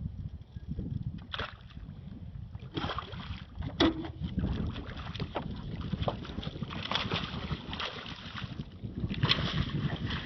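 Water splashing and sloshing against a small boat, with a few sharp knocks on the hull and a steady low wind rumble on the microphone.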